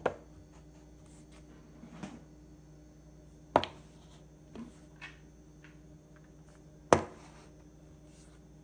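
Plastic deodorant sticks set down one after another on a hard countertop: a series of sharp knocks, the two loudest about three and a half and seven seconds in, over a faint steady hum.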